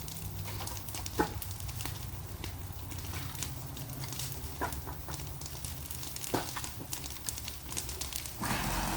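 Debris burn pile crackling with scattered sharp pops, over a low steady hum. The background grows louder about eight seconds in.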